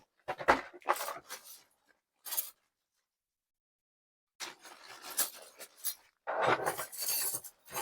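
Handling noise from unpacking: short clicks and rustles, a gap of silence of about two seconds, then a longer stretch of rustling and clinking as packaging and small tool parts are moved about.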